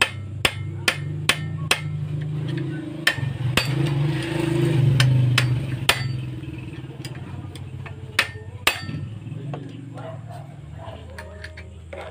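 Steel claw hammer striking a screwdriver set against a mini chainsaw's clutch, metal-on-metal taps to knock the clutch loose for removal. There are four quick taps at first, then single blows and pairs spaced a second or more apart. A low engine drone runs underneath and swells around the middle.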